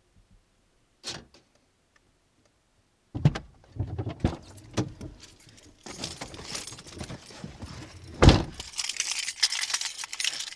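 Someone getting into a car: a click, then knocks and clothing rustling as he climbs into the driver's seat, and the car door shutting with a thud a little past 8 seconds. A bunch of car keys then jangles in his hand.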